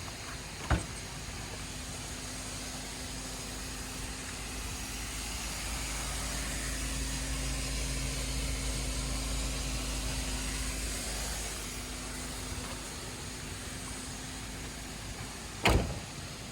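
A vehicle engine's low hum swells and fades over several seconds beneath a steady hiss. There is a sharp knock about a second in and a louder one near the end.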